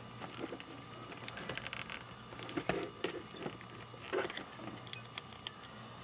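Small clicks, taps and rubbing of hands handling the opened plastic-and-metal laptop power adapter, a few slightly louder knocks among them, over a faint steady hum.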